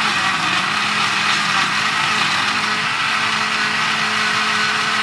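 Homquip countertop blender motor running steadily, blending lemon-mint juice with ice, a loud even whir with a steady hum under it.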